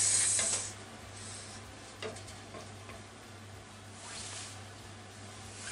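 Shirataki noodles and vegetables sizzling in a frying pan as a wooden spatula stirs them, louder for the first half-second, then a quieter steady sizzle over a low hum. The pan's liquid is being simmered off.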